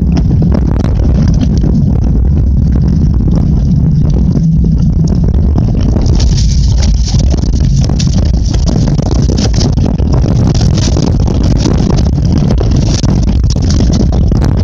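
Mountain bike rolling fast down a dirt trail, with heavy wind rumble on the microphone and frequent rattles and knocks from the bike bouncing over roots and ruts.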